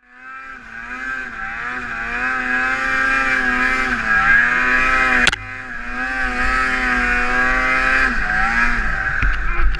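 Snowmobile engine running at high revs, its pitch wavering slightly as the throttle varies. A sharp click about five seconds in is followed by a brief drop in level.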